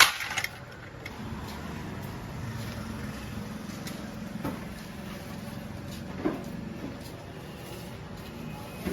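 Steady low rumble of background noise with a few short knocks, one about four and a half seconds in and another about six seconds in.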